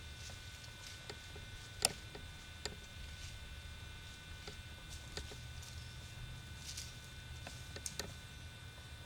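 Quiet background with a steady hum and a few faint, scattered clicks and ticks; the sharpest click comes about two seconds in.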